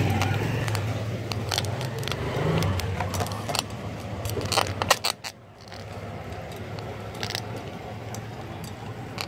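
Motorcycle engine running with a steady low hum, under sharp rattling and clicking. The sound drops sharply about five seconds in, then goes on quieter.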